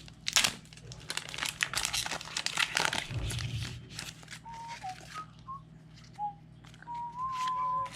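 Foil booster-pack wrapper crinkling and tearing open, dense crackling through the first half. In the second half it quiets, and a few short whistled notes follow, the longest near the end.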